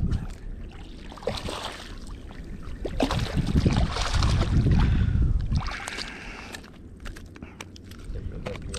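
Hooked speckled trout splashing at the surface close in as it is landed, with water sloshing. The splashing is loudest from about three to five and a half seconds in.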